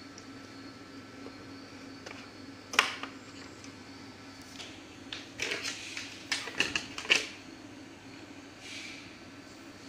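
Clicks and light knocks from the plastic and metal parts of a projector being taken apart by hand: one sharp click about three seconds in, then a cluster of clicks and rattles between about five and seven seconds, over a steady low hum.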